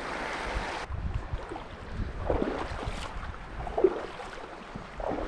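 Stream water running, with wind buffeting the microphone. The steady rush cuts off abruptly just under a second in, leaving low wind rumble and a few faint brief sounds.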